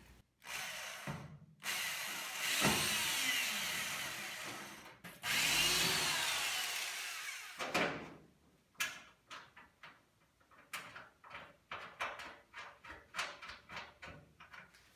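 A drill running in three bursts, its motor speed rising and falling, as holes are drilled in metal for a hood strut bracket. After that comes a string of short, light clicks and taps as metal parts are handled.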